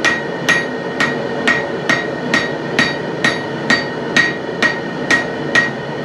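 Hand hammer striking a metal bar in a steady rhythm, about two blows a second, each blow with a short bright ring.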